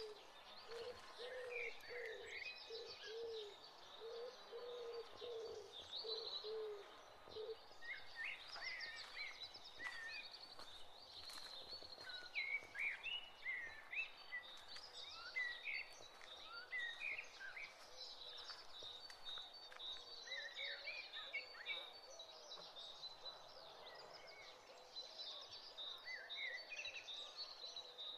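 Small birds chirping and twittering, with a dove cooing in a steady string of low notes for the first seven seconds or so.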